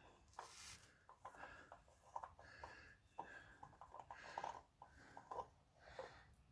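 Faint, scattered small clicks and scrapes of hand work on the engine, with an oil filter being screwed back on by hand.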